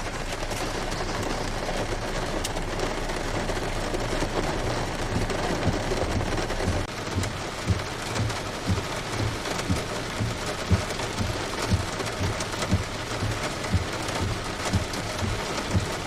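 Heavy rain falling steadily, with irregular low thumps underneath, more frequent in the second half.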